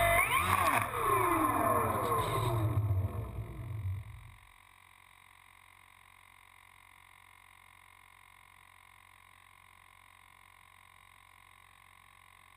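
Electric motor and propeller of a Kyosho Calmato 60 RC plane converted to electric, heard from an onboard camera, whining up and down in pitch as the throttle is worked on the ground. The motor cuts off about four seconds in, leaving only a faint steady hum.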